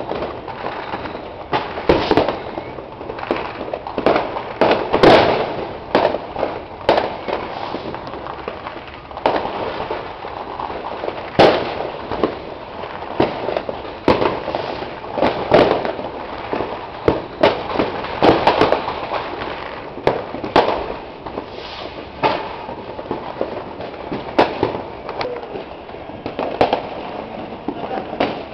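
Many fireworks and firecrackers going off at once: a constant crackle with frequent irregular bangs and pops, some much louder than the rest.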